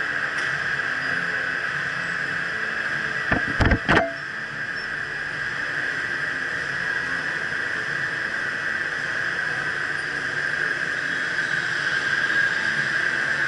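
Electric go-kart driving, with a steady high-pitched drone and rush. A few loud knocks come in quick succession about three and a half seconds in.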